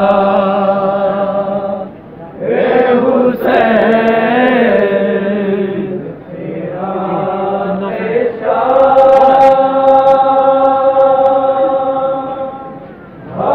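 A man's amplified voice chanting a nauha, a Shia lament, in long held notes, in about four phrases with short breaks between them.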